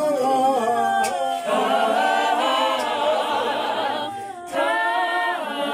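Unaccompanied choir singing in long, held phrases, with a short break about four seconds in before the next phrase begins.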